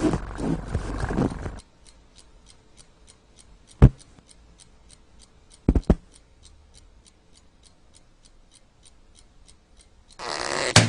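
A domestic cat meowing loudly, stopping about one and a half seconds in and starting again near the end. In the pause there is a faint, even ticking about three times a second, broken by one sharp knock and then a quick double knock.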